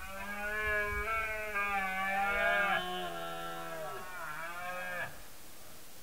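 Red deer stag's rutting roar: one long call lasting about five seconds, its pitch dropping toward the end.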